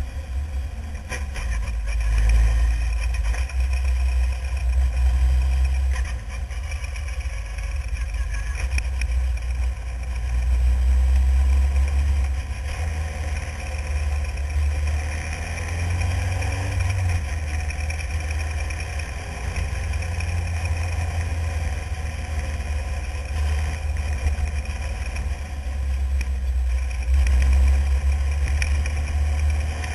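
Renault engine of a single-seat formula racing car running at speed, its note swelling and dropping every few seconds as the driver works the throttle. Heavy wind buffeting on the onboard microphone adds a deep rumble.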